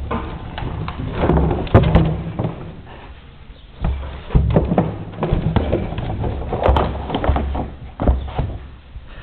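A horse nosing and shoving a blue plastic barrel across a sand arena floor: irregular knocks and thuds as the barrel is bumped and rolls, with a few sharper clicks, the loudest about two seconds in.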